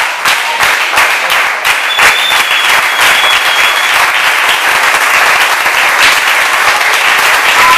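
A group of about thirty people clapping their hands in steady, continuous applause.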